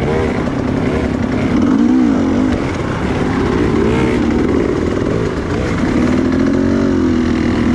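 Motorcycle engine revving, its pitch rising and falling several times, then holding steadier near the end.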